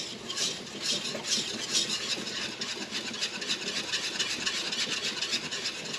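Metal whisk stirring quickly in a pot of hot strawberry-rhubarb purée, mixing in powdered pectin so it doesn't set: rhythmic scraping and swishing strokes against the pot, about two a second at first, then faster.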